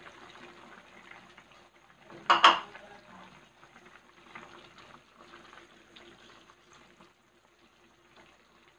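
A pot of chicken soup bubbling at a boil on the stove, with one loud clank of cookware against the pot about two and a half seconds in. The bubbling thins out after about seven seconds.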